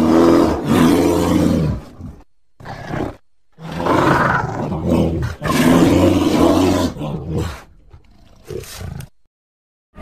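Sound-designed roars of a zombie Argentinosaurus, a giant sauropod: a roar of about two seconds, a short one, then a longer one of about four seconds that trails off into faint grunts.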